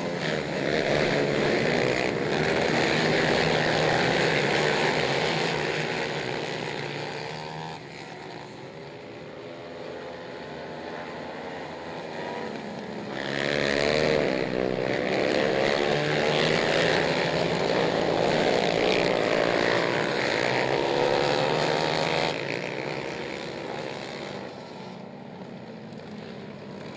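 Racing quad ATV engines at full throttle, their pitch rising and falling as they accelerate and back off through the turns. The sound swells twice as the pack passes close, about a second in and again near the middle, then fades.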